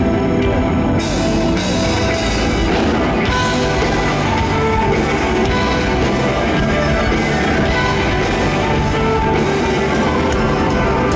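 A folk-metal band playing live: an electric violin carries the melody over drum kit and electric guitar, with the drums and cymbals coming in fully about a second in.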